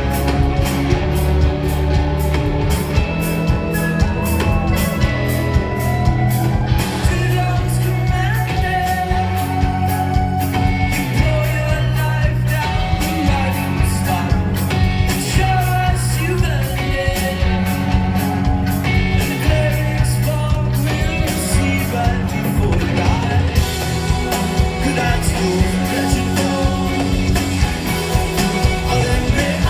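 Indie rock band playing live through a big PA: a lead vocal over electric guitars, drums and keyboard, recorded from the crowd.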